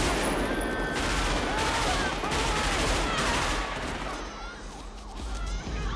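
Rapid automatic rifle fire in a gunfight, dense overlapping shots, dying away about four seconds in.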